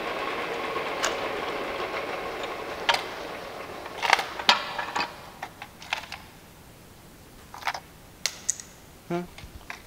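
Electric drill running through a plastic GSM alarm control panel for about the first three seconds, then stopping, followed by a run of sharp, scattered plastic clicks and knocks as the drilled panel is handled.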